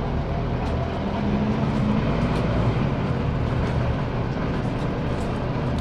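Interior sound of a 2007 Scania CN270UB city bus on the move: its Scania DC9 five-cylinder diesel engine running under way, with the engine note rising briefly about a second in.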